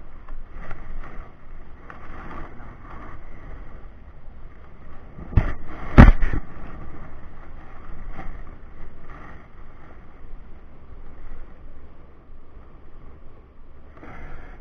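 Outdoor background noise with a low rumble like wind on the microphone, broken by two sharp knocks about five and a half and six seconds in, the second much louder.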